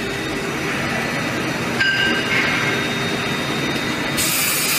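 Loud, steady machine-shop noise from running CNC machinery, with a short high whine about two seconds in and a burst of hiss near the end.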